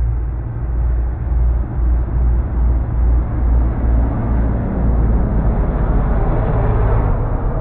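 Two Can-Am Maverick X3 side-by-sides with turbocharged three-cylinder engines, racing flat out down a dirt drag strip and passing close by. The sound is a loud, steady mix of engine and tyre noise.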